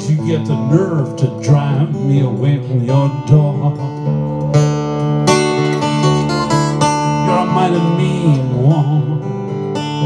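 Acoustic guitar playing fingerpicked blues, with a run of sharp strummed chords around the middle.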